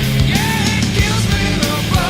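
Rock music with a steady drum beat and a wavering melody line.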